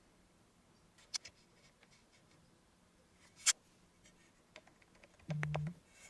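A few scattered light clicks and taps, a sharper one about halfway through. Near the end comes a brief low buzz mixed with quick small clicks.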